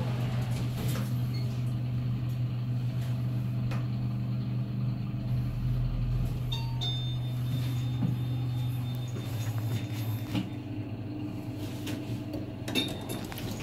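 Hyundai LXVF passenger elevator car travelling with a steady low hum, which fades as the car slows to a stop. A short clatter of the sliding doors opening comes near the end.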